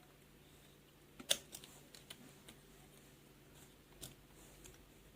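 Faint, scattered small clicks and taps of hands and a tool working inside an opened tablet, with one sharper click about a second in.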